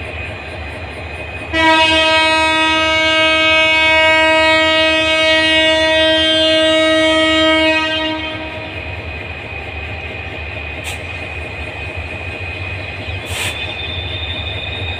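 Diesel locomotive's horn sounding one long steady blast of about six seconds, over the continuous low rumble of a diesel engine. Two brief clicks come near the end.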